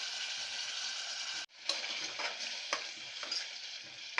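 Mutton and masala sizzling in oil in a pressure cooker pot. About a second and a half in the sound cuts out briefly, then the sizzling returns with several sharp knocks of a spoon against the pot as it is stirred.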